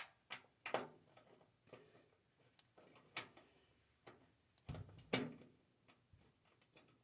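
Sparse light clicks and taps of hand tools and loose screws during the disassembly of a vacuum-tube TV, about seven over several seconds with a small cluster about five seconds in.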